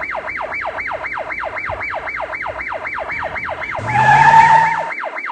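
A siren-like electronic sound: a rapid falling-pitch sweep repeating about five times a second. About four seconds in, a louder held blare with hiss sounds for about a second.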